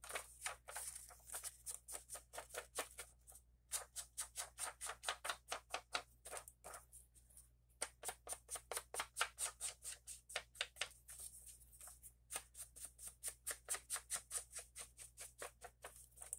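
Ink applied to paper with quick rubbing strokes, about four to five a second, broken by a few short pauses.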